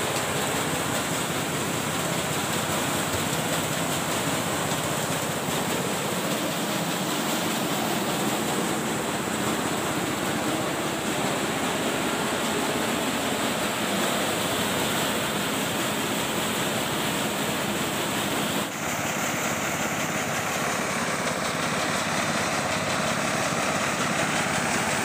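Engine-driven rice thresher with a shaking sieve running steadily: a continuous, even mechanical noise. It changes slightly about 19 seconds in.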